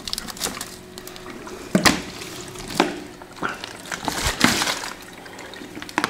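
Plastic bottle of partly frozen water being handled and shaken: water sloshing inside around the ice, with the plastic knocking and crinkling in a few irregular bursts.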